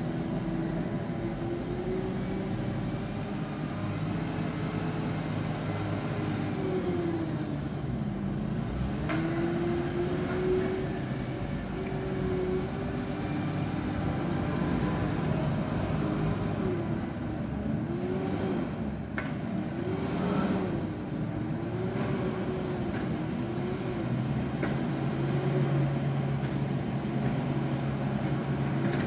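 JCB 435S loading shovel's diesel engine working a silage clamp. The revs rise and fall as it drives up the heap, backs off and climbs again, with quick swells about one a second in the second half.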